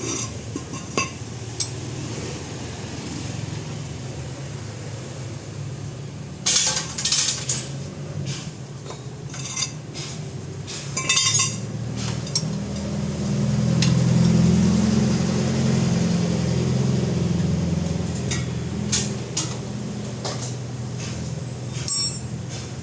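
Metal tools and parts clinking now and then during car repair work, over a steady low mechanical hum that grows louder about twelve seconds in.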